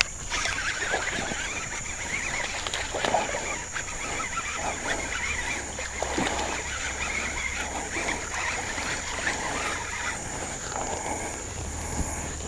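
A hooked largemouth bass being fought and reeled in on a baitcasting rod: reel cranking and the fish splashing in moss-covered, weedy pond water, with many small irregular splashes and knocks.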